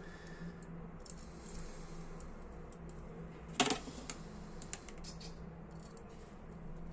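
Small metal clicks and taps from hand tools working the lever and spring of a Ronson Comet lighter, with one louder click a little past halfway, over a faint steady hum.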